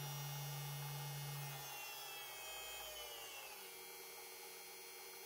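Mini benchtop drill press's small electric motor running at its highest speed, then slowing about two seconds in: its whine slides down in pitch and settles lower.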